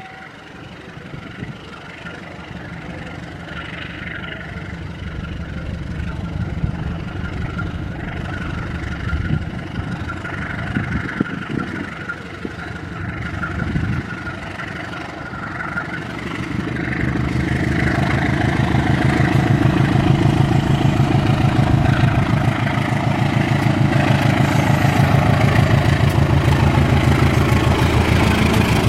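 Diesel locomotive engine drawing closer and growing steadily louder, then running loud and steady with a fast, even throb through the second half.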